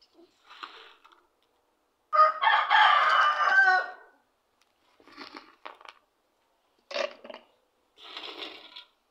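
A rooster crows once, a single loud call about two seconds long. Afterwards there are short clatters of dry chopped nuts dropping into a plastic blender jar.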